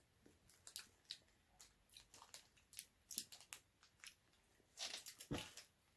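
Small grape-flavoured hard candy sweets being eaten: a run of faint short clicks and crunches in the mouth, louder in a cluster about five seconds in.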